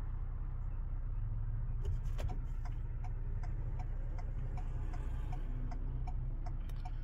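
A vehicle's turn-signal flasher ticking evenly, about two ticks a second, over the low hum of the idling engine inside the cab. The ticks grow clearer about two seconds in.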